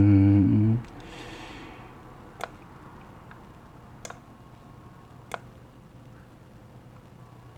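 A brief word trails off and a short breath follows. Then come three sharp, separate clicks spread over about three seconds, as of equipment being handled, over quiet room tone.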